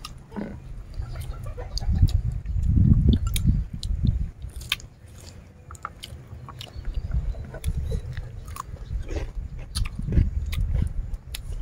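Close-up chewing and biting of mouthfuls of fried chicken and raw vegetables, in irregular bouts that are loudest a couple of seconds in, with sharp crunches and clicks scattered through.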